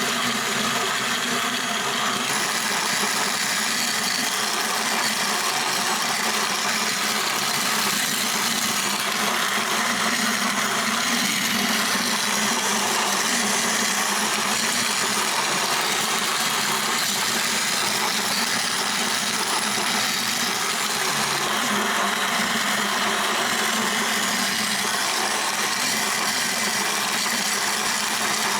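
KitchenAid stand mixer motor driving its grain mill attachment, grinding dried field corn into flour: a steady, unbroken machine noise with the grinding of the kernels.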